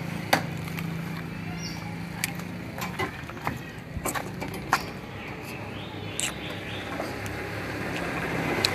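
A scatter of sharp clicks and cracks over outdoor background noise, with a low steady hum that stops about three seconds in and a motor growing louder near the end.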